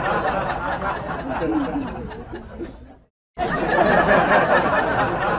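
A crowd of people chattering and laughing together. It cuts off suddenly about three seconds in and starts again after a brief silence.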